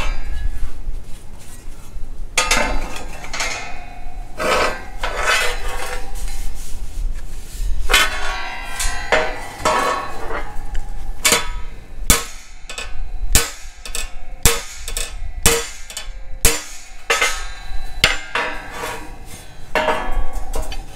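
Minneapolis-Moline X231 prototype tractor's sheet-steel grille panel clanking and ringing against a steel workbench as it is handled and bent by hand to restore its contour. Irregular sharp metal knocks, coming thickest in the second half.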